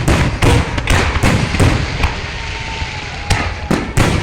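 Fireworks going off: a rapid, irregular run of loud bangs with crackling between them.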